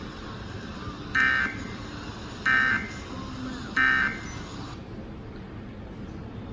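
Three short bursts of SAME/EAS digital data tones, a harsh warbling buzz about a second and a half apart, from a NOAA Weather Radio broadcast: the end-of-message code that closes a severe thunderstorm warning. A steady radio hiss runs underneath.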